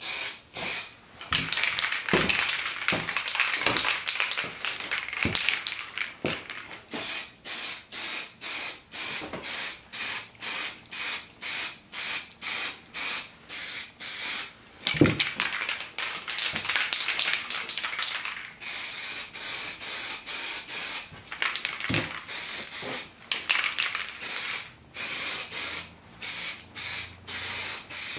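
Aerosol spray paint can hissing as black paint is sprayed onto motorcycle engine parts, alternating between long continuous sprays and runs of short quick bursts about two a second.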